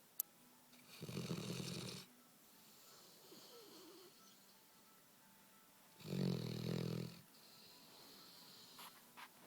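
Black Labrador snoring: two loud snores, each about a second long, roughly five seconds apart.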